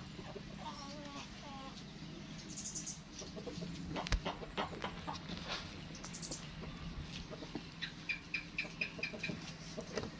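Short animal calls over a steady low hum: a wavering call in the first two seconds, two brief very high chirps, and a quick run of about seven short high notes near the end. A few light knocks come around four seconds in.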